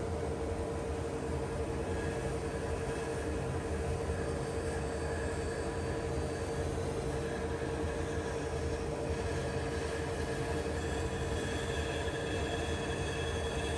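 Steady mechanical drone with a constant mid-pitched hum, unbroken and even in level, as from a workshop machine running.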